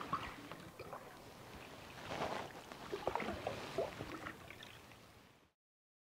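Wooden canoe paddle dipping and pulling through calm lake water: soft swishes, gurgles and drips in several strokes. The sound cuts off abruptly near the end.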